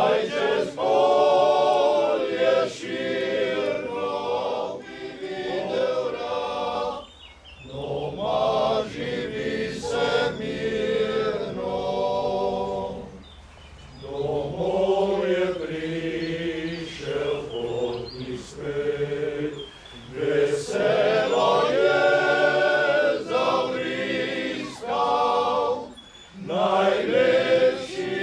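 Male voice choir singing a cappella in several parts, in long sustained phrases with short pauses between them.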